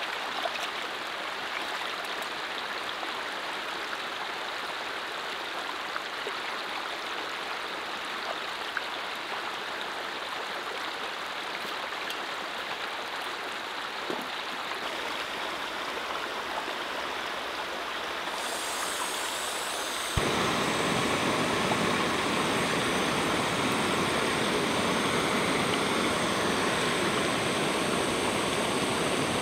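Steady rush of running water, with a couple of light clicks near the start as a metal pot is dipped and set down. About twenty seconds in it changes abruptly to a louder, fuller steady rushing hiss: a canister gas stove burning under a titanium pot.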